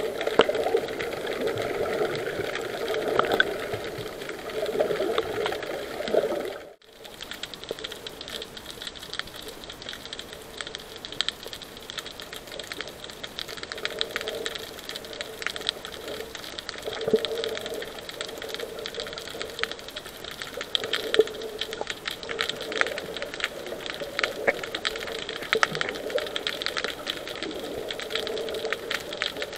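Underwater sound picked up by an action camera in its waterproof housing: dense fine crackling clicks over muffled swishes of water, with a short break about seven seconds in.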